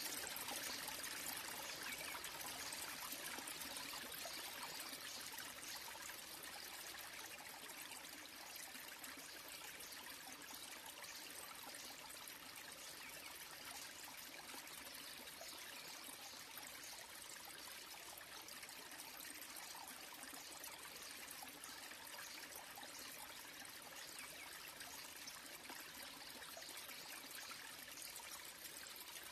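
Small waterfall: thin streams of water falling from a mossy rock ledge and splashing below, a steady trickling splash that eases slightly after the first few seconds.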